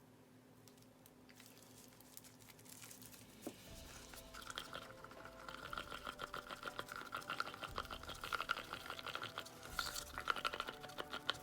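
A stick stirring white pigment into epoxy resin in a cup, with rapid squeaky scraping against the cup. It is faint at first and grows louder from about four seconds in.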